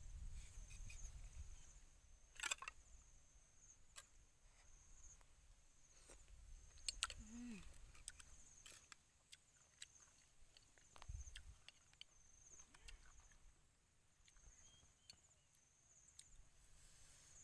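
Near silence outdoors, broken by scattered light clicks of a metal spoon against a ceramic soup bowl, over a faint steady high hiss.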